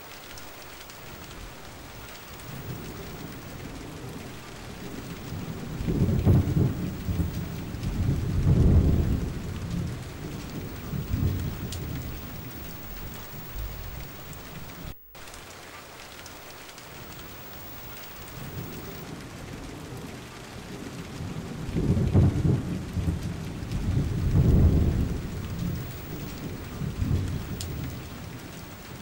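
Steady rain falling, with two long rolls of thunder that build and fade over several seconds, one in the first half and one in the second.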